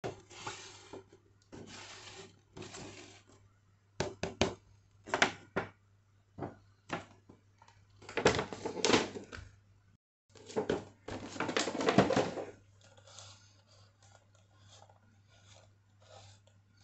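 Handling noises of a plastic toy figure and its cardboard box: irregular rustles, scrapes and knocks, with a faint steady low hum underneath.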